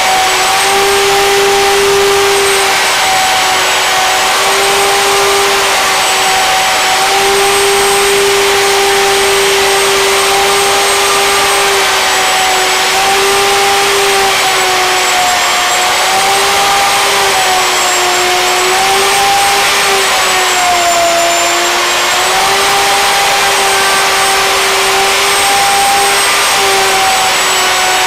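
Plunge router running at speed as it is pushed across a planing sled, its bit surfacing a board on a second pass. A steady high whine with cutting noise, the pitch sagging slightly for a few seconds about two-thirds of the way through as the bit takes load.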